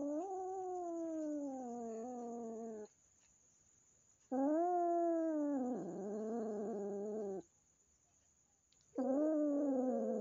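A cat giving three long, drawn-out meows, each lasting about three seconds and falling in pitch, with short silent gaps between them; the third starts near the end.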